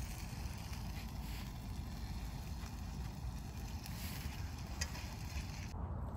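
Steady low rumble of wind buffeting the microphone, with a faint hiss and a few small clicks of food being handled.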